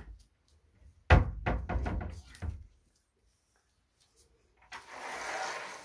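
Sliding wardrobe door being pushed: a loud knock about a second in with a short rattle after it, then the door rolling along its track near the end.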